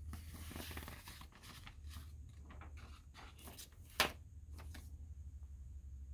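Rustling and sliding of a paper record inner sleeve and cardboard album jacket being handled, with one sharp click about four seconds in.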